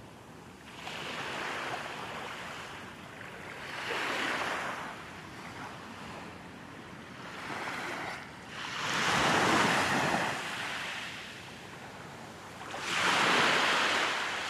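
Small waves breaking and washing up onto a sandy beach. The sound swells and fades about every three to four seconds as each wave comes in, and two of the swells, in the middle and near the end, are the loudest.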